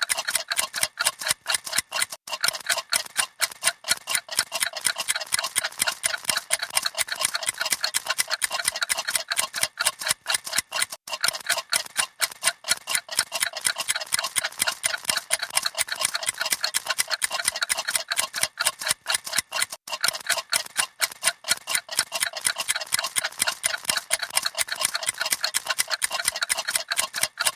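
Several clocks ticking rapidly together, their ticks overlapping into a dense, uneven clatter of sharp clicks, several a second, at a steady level.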